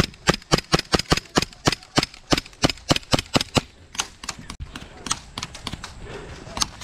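Airsoft gun firing a quick string of sharp single shots, about four a second, then a few scattered, fainter shots.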